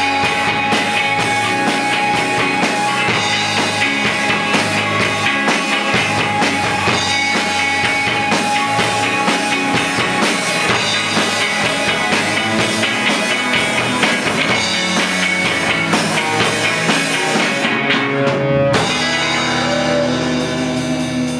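Rock band playing live, with electric guitars, bass and drum kit in a dense instrumental passage. About nineteen seconds in the drumming breaks off and a held chord rings on, growing quieter.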